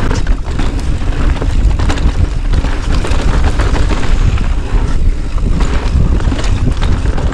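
Wind buffeting the action camera's microphone at riding speed, a loud, steady low rumble, with many short rattles and knocks from the ride over rough ground.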